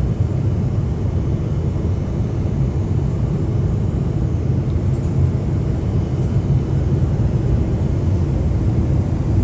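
Airliner cabin noise: a steady low rumble from the aircraft.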